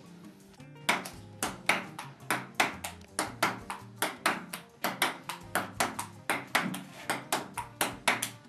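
A quick, fairly even series of sharp taps or knocks, about three to four a second, starting about a second in.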